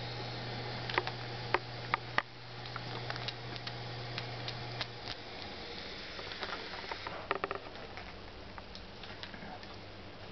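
A chow chow's claws and paws clicking and tapping on a ceramic tile floor in irregular, scattered clicks as the dog paws and steps around a centipede, with a quick flurry of clicks about seven seconds in. A steady low hum runs underneath and stops about halfway through.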